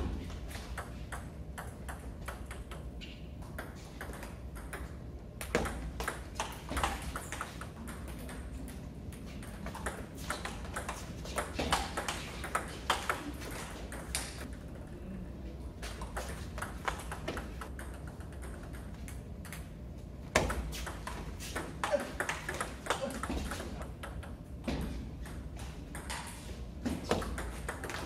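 Table tennis rallies: the ball clicking back and forth off the paddles and the tabletop in quick runs of a few seconds each, with short pauses between points.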